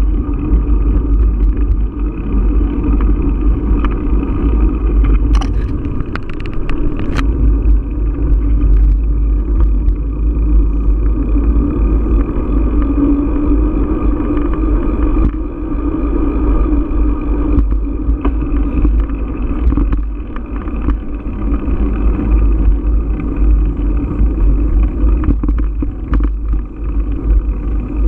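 Steady low rumble of wind buffeting a bike-mounted action camera's microphone, mixed with tyre noise on asphalt, while riding a bicycle along a paved trail. A few sharp clicks and rattles come about five to seven seconds in.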